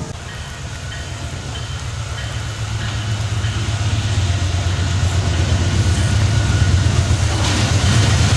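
Approaching Amtrak Pennsylvanian train and its diesel locomotive: a low engine rumble growing steadily louder as it nears.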